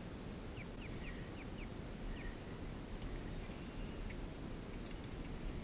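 A bird calling, a quick run of about five short notes roughly half a second to a second and a half in, with a few fainter calls later, over steady low wind and water noise on the microphone.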